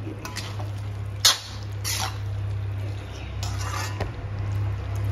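Perforated metal spatula pressing and mashing soft cooked pumpkin in a metal kadhai: soft squishing with several short scrapes of metal on the pan, the sharpest about a second in. A steady low hum runs underneath.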